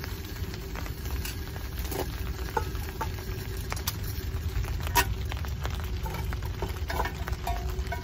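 Wood fire crackling in a small UNIFLAME Nature Stove fire stand, with scattered sharp pops over a steady low rumble of flame; the loudest pop comes about five seconds in.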